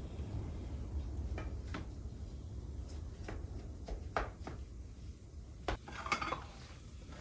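Dishes and metal utensils clinking and knocking, a few scattered strokes with a small cluster of clinks about six seconds in, over a steady low rumble.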